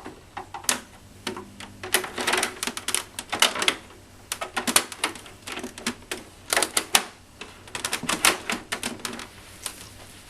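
Irregular clusters of sharp clicks and clatters, mechanical in character, in quick runs separated by short pauses.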